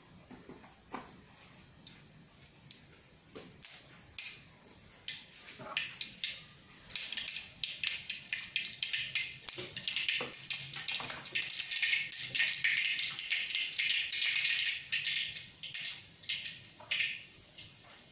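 Mustard seeds spluttering in hot coconut oil in a kadai, the tempering stage of a Kerala dish. A few scattered pops at first, building about seven seconds in to dense rapid crackling, which thins out near the end as the seeds finish popping.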